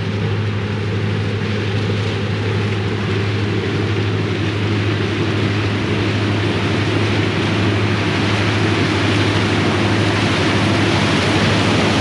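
Steady machinery noise: a constant low hum under an even wash of mechanical noise, holding level without change.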